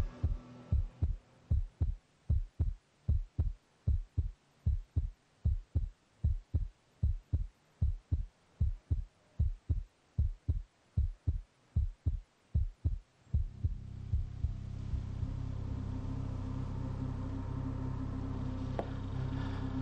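A low, heartbeat-like pulse of suspense sound design: an even run of short thumps, about three a second, that gives way about 13 seconds in to a steady low droning hum.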